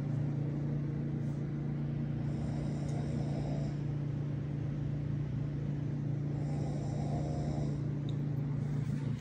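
A person asleep snoring, two slow snores about four seconds apart, over a steady low hum.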